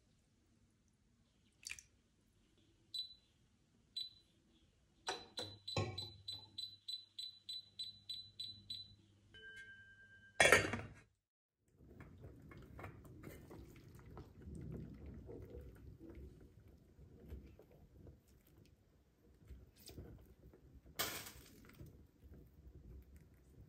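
Kitchen prep sounds: scattered knocks and clinks of dishes and utensils, with a run of quick, evenly spaced ticks for a few seconds and one loud sharp noise about halfway through.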